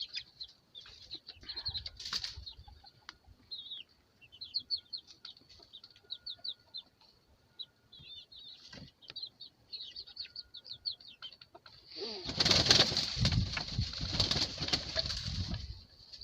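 Baby chicks peeping in quick, high, falling chirps, then about twelve seconds in a loud flurry of chicken wings flapping for about four seconds, with the peeping still going on over it.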